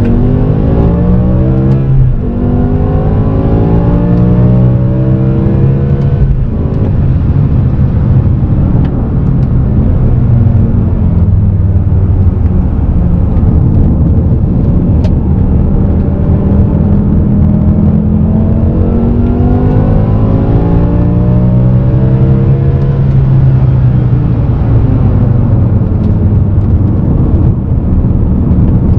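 BMW M6 E63's 5.0-litre V10 heard from inside the cabin under hard acceleration. The engine note climbs through the revs with two quick upshifts in the first seven seconds, then runs steadier before pulling up again about two-thirds of the way through and easing off.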